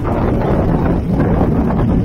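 Wind buffeting the microphone on the deck of a high-speed passenger boat under way, over the steady rush of the boat and its water.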